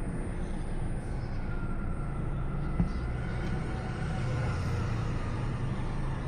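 Steady low outdoor rumble of the kind traffic makes, with a faint thin tone in the middle and a single short knock about three seconds in.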